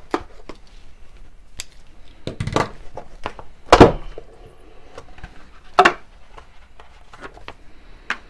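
A knife slitting the packing tape on a small cardboard die box, then the box being handled and its lid pulled off and set down on a wooden workbench: a run of light scrapes and clicks with a few sharp knocks, the loudest about four seconds in and another near six seconds.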